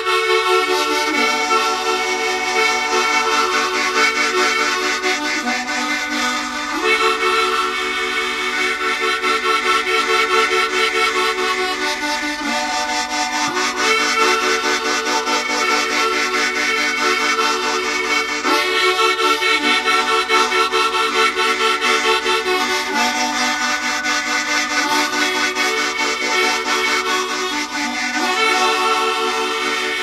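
Harmonica playing long held chords in a slow, droning trance style, the chord shifting every few seconds.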